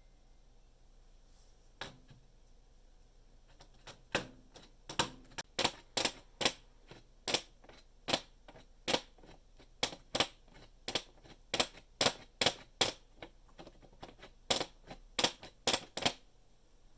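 Sharp plastic clicks from a socket organizer rail's clips as a socket is worked onto them: one click, then a long uneven run of about two clicks a second.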